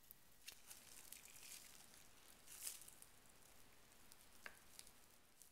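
Faint crinkling and crackling of cellophane plastic wrap being wrapped by hand around a folding pocketknife.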